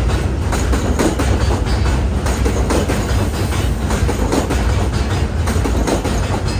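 An R160A subway train running out along the platform at close range, with a steady low rumble and its wheels clicking over rail joints about twice a second.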